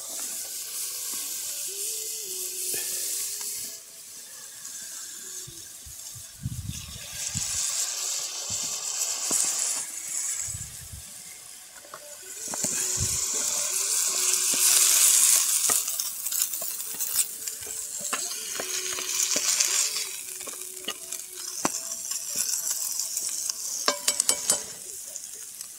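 Leftover turkey dinner sizzling in a cast-iron Dutch oven over a wood fire, a hiss that swells and fades, loudest about halfway through, with scattered sharp crackles and a cluster of them near the end.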